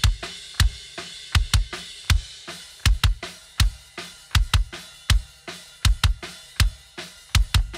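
Kick drum played in a groove of single and quick double strokes, heard soloed through an Avantone Mondo Mic placed inside the bass drum and processed, giving a deep thump with a sharp beater click. Faint cymbal and snare bleed sits underneath.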